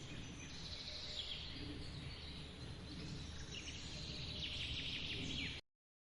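Steady rush of a forest waterfall with birds chirping over it, a burst of quick chirps near the end. The sound cuts off suddenly to complete silence shortly before the end.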